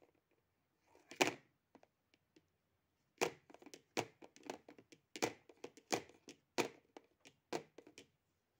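Hard plastic toy animal figures knocking and being set down on a hard surface. There is one knock about a second in, then a run of light knocks and taps, about two a second, from about three seconds in until near the end.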